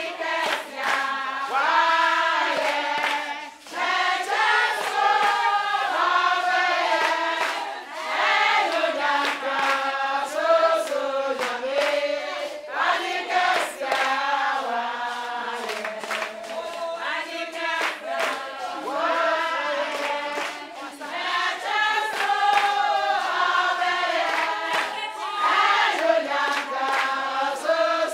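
A group of women singing together, with hand claps through the song.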